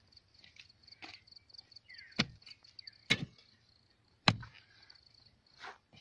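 A digging tool striking hard, dry soil in separate strokes, three loud ones about a second apart. Insects chirp steadily in the background.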